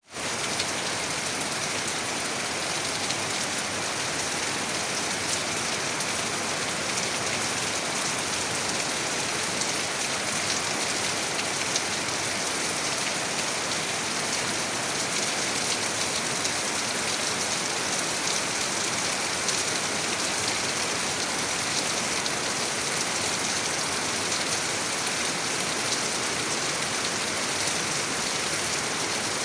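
Steady rain falling, an even hiss with faint patter of individual drops.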